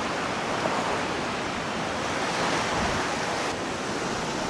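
Sea waves washing onto a sandy beach: a steady rush of surf.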